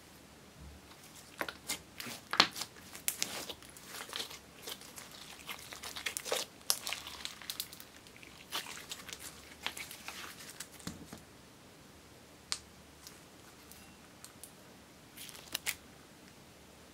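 Yellow slime being stretched, folded and pressed by hand: sticky crackling and small popping clicks as it pulls apart and traps air. The crackles come thick for most of the first ten seconds, then thin out to a few scattered pops and a last short burst near the end.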